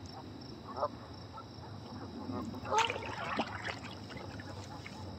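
Water trickling and dripping as a canoe is paddled, with a few brief sharp sounds about three seconds in.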